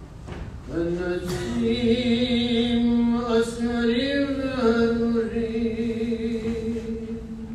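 A man chanting a Jewish prayer solo into a microphone, beginning under a second in and holding long, drawn-out notes that waver and rise a little around the middle.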